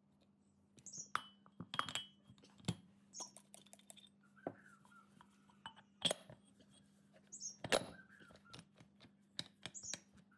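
Steel parts of a pneumatic impact wrench's hammer mechanism clinking and knocking as the hammer cage is fitted onto the anvil shaft and the cast housing is slid over it, in a string of sharp separate clinks.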